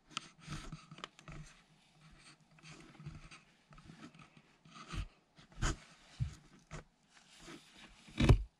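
A cat moving about inside a cardboard box, its fur and paws scraping and rubbing on the cardboard, with a few bumps against the box and the loudest bump near the end.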